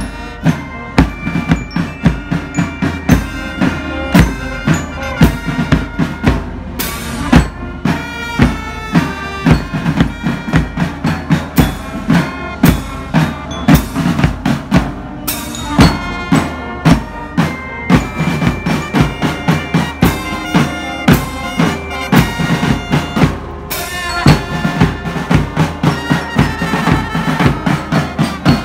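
Navy marching band playing: brass instruments carry a held, sustained melody over a steady beat of bass and snare drums.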